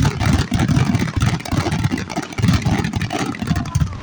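Fireworks going off in rapid succession: a dense run of crackles and bangs over a continuous rumble, distorted on the recording.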